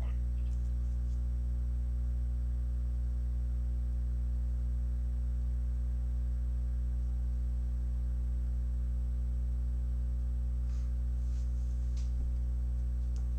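Steady low electrical hum with a buzz, unchanging throughout, with a few faint ticks near the end.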